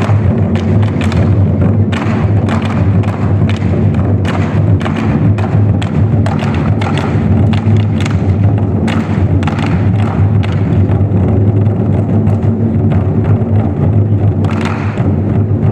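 24 Festive Drums ensemble beating large Chinese barrel drums with sticks: a dense, unbroken run of heavy booming strokes mixed with sharper stick clicks.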